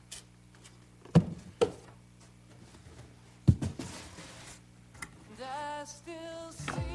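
A few sharp thumps of cardboard boxes being handled on a countertop. Soft music comes in about five seconds in.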